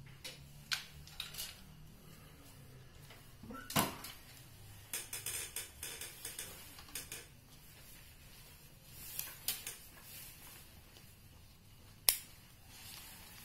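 Metal strap clips clicking and knocking against a wooden pigeon-cage frame as a carry strap is hooked on: scattered clicks and rattles, with sharper knocks about four seconds in and near the end.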